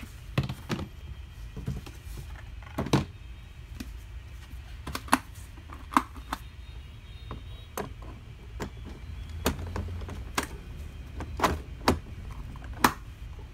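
Scattered clicks and knocks of hard plastic toy-car wheels being handled and fitted onto the axle of a kids' ride-on car, a dozen or so irregular taps.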